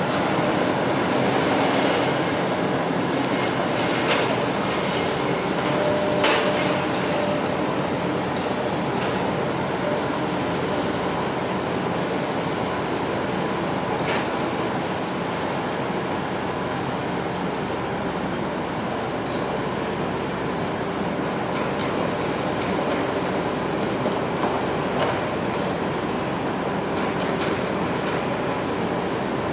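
Heavy construction machinery running steadily, a dense mechanical drone with a few sharp metallic knocks scattered through it.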